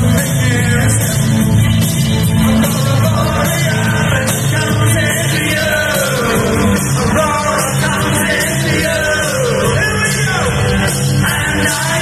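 A new wave rock band playing live: drums, electric guitar and synthesizer under a sung lead vocal. It is loud and heavy in the bass, as heard from among the crowd.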